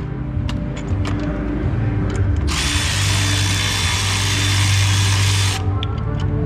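Power drill running steadily for about three seconds, starting and stopping abruptly, with a few light clicks before it.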